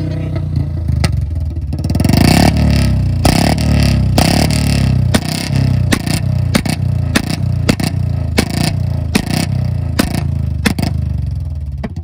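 Royal Enfield Bullet Standard 350 single-cylinder engine being revved in blips, its exhaust firing a string of sharp backfire pops ('pataka'), a few a second. The revs climb about two seconds in and again near four seconds, and the pops fade out near the end.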